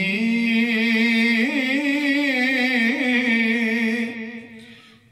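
A man's voice singing one long held note, the pitch wavering throughout; it fades over the last second and stops just before the end.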